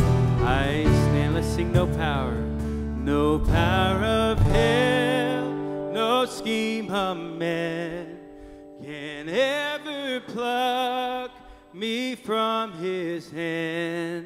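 Worship band of acoustic and electric guitars with a cajon playing the end of a hymn; about four and a half seconds in the full band drops away, leaving soft ringing notes and a single voice.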